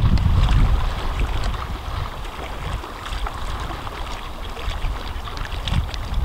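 Wind buffeting the microphone in a low rumble that eases after about a second and picks up again near the end, over faint lapping of small waves.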